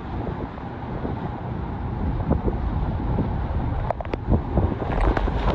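Category 2 hurricane wind and heavy rain gusting hard and buffeting the microphone with low, rumbling blasts. A few sharp ticks come through about four seconds in and again near the end.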